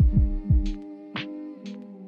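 Background music with a steady beat: deep drum hits that drop quickly in pitch, sharper snare-like hits in between, over held synth chords.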